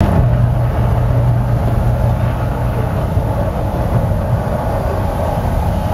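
Mirage volcano attraction erupting in steam and flame, with a deep, steady rumble.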